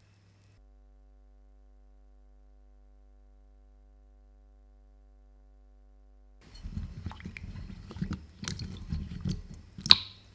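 About six seconds of near silence, then wet handling sounds as hands work through raw potato sticks soaking in a glass bowl of water: sloshing, drips and small knocks, with one sharp tap just before the end.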